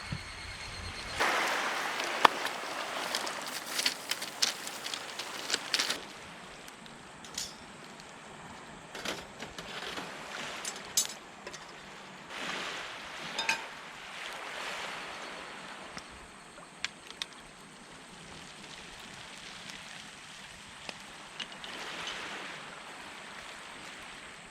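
Surf washing on the shore in slow swells, several seconds apart, with scattered sharp clicks and clinks over the top.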